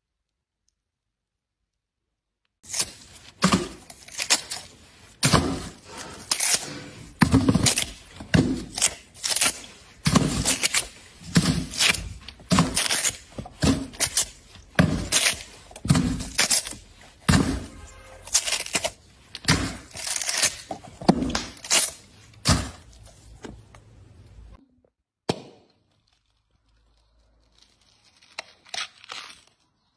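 Watermelon being broken open by hand: repeated loud cracks and tearing of the crisp rind and flesh, about one a second, starting about two and a half seconds in. A few quieter cracks come near the end as the rind splits under the fingers.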